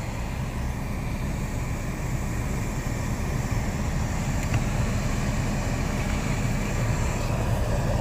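2011 Suzuki SX4's 2.0-litre four-cylinder engine idling with the A/C switched on, heard from inside the car: a steady low rumble.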